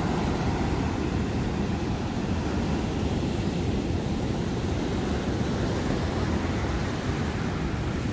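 Ocean surf breaking and washing over rocks along a sandy shore, a steady rushing rumble with wind buffeting the microphone.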